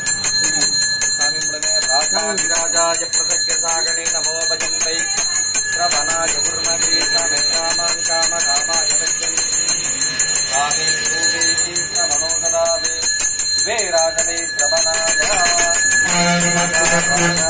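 Small brass puja hand bell rung in rapid, continuous strokes during aarti, its high ringing tones sustained throughout.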